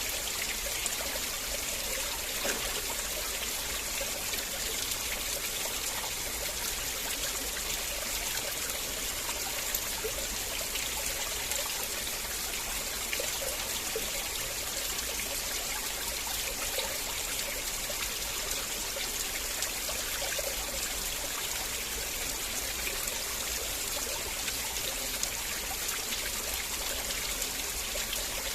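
River water flowing and trickling steadily over stones, a continuous even rush with small babbling splashes.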